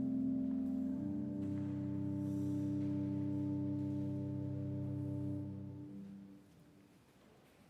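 Instrumental music of sustained low chords held steady, moving to a new chord about a second in, then fading out about six seconds in.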